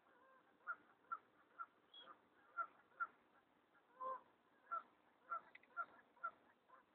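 A bird calling in short, faint notes, about ten in a row at roughly two a second, with one longer call a little past the middle.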